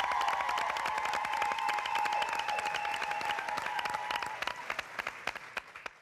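Audience applauding and cheering, with dense rapid clapping and a held shout. It dies away toward the end.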